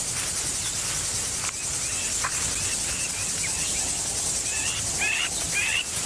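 Steady, high-pitched insect chorus, with short bird-like chirps that come more often in the last couple of seconds.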